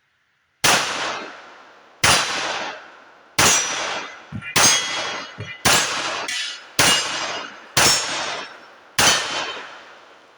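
Eight shots from a Tisas M1911 .45 pistol, fired about a second apart, each answered at once by a steel target ringing with a long metallic tail. The string ends when the gun runs empty.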